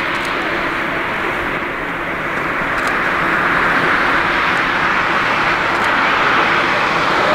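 Steady jet-engine noise from a Boeing 747-8 freighter's four turbofans as it rolls along the airfield, a smooth rushing hiss that grows slightly louder toward the end.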